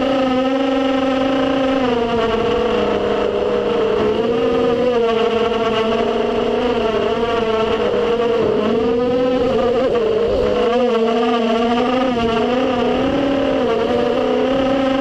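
FPV racing quadcopter's motors and propellers whining loudly in flight, the pitch repeatedly dipping and rising as the throttle changes through turns.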